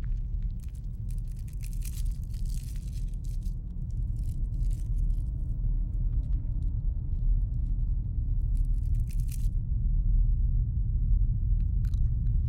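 A low, steady rumbling drone that slowly grows louder, with bursts of crackling rustle around two seconds in and again near nine seconds.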